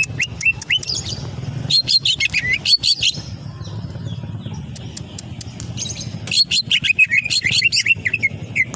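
Cucak ijo (green leafbird) singing: rapid runs of quick high chirping notes in two dense bursts, about two seconds in and again about six seconds in, over a low steady hum.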